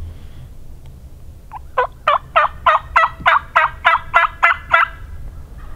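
A series of about a dozen turkey hen yelps, evenly spaced at roughly three a second, starting soft and quickly growing loud.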